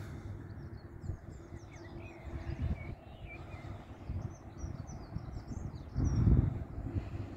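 Small birds singing, many short chirps, over a low rumble of wind on the microphone; about six seconds in, a louder gust buffets the microphone.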